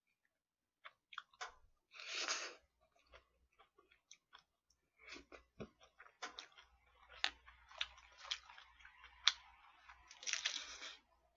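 Close-miked eating sounds: a fork clicking and tapping against plastic takeout containers, with chewing throughout. A louder crunchy bite into a lettuce wrap (ssam) comes near the end.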